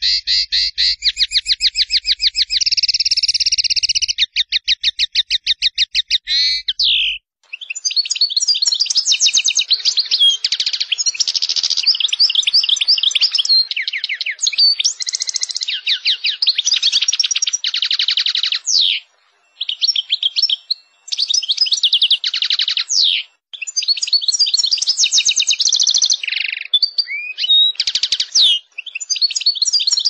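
European goldfinch song of the rolling, rapid 'ngerol tembak' type: a fast, even trill for about the first seven seconds, then varied high twittering and trilled phrases broken by short pauses.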